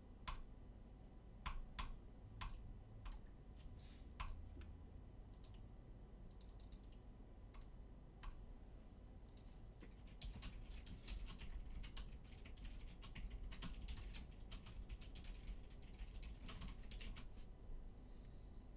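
Typing on a computer keyboard: scattered single key clicks at first, then a quick run of typing from about ten seconds in until near the end.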